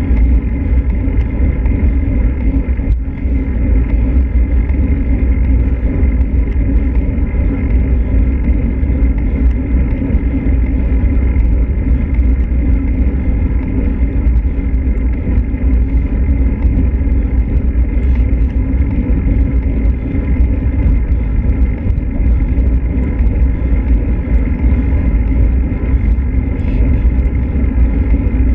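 Steady low wind rumble buffeting the microphone of a bicycle-mounted camera as a road bike climbs, with faint steady whines above it.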